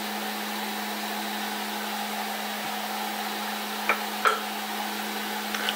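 Snapmaker 2.0 3D printer's cooling fans running with a steady whir and hum while the nozzle is hot. Two short knocks about four seconds in and a faint click near the end.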